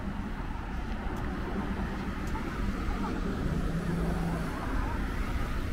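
Steady low rumble of road traffic, with faint distant voices.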